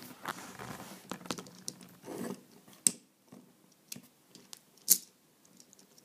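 Hard plastic parts of a Transformers MechTech Voyager Megatron action figure being handled and snapped into place, with scraping and rattling and two sharp clicks, about three and five seconds in.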